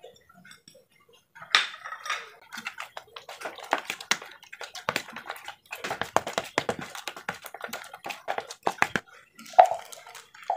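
Metal spoon stirring a thick flour-and-egg bait batter in a plastic bowl, a rapid, irregular run of scrapes and clicks against the bowl, ending with one louder knock near the end.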